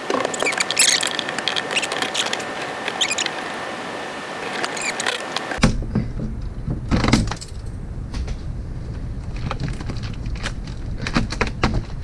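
Clicking and rattling of hands and a flashlight working among the wiring bundles and vacuum hoses behind an open motorhome dash panel. About halfway through, the sound turns duller as a low rumble comes in.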